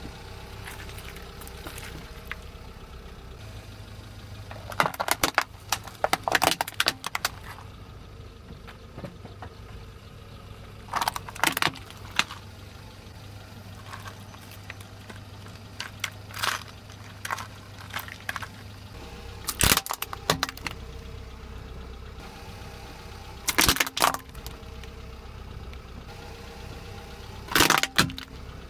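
A car's tyre rolling over and crushing objects, a net bag of small red fruit and a toy tanker truck among them, giving sharp cracks and crunches in about six short bursts several seconds apart. Under them the car's engine runs with a steady low hum.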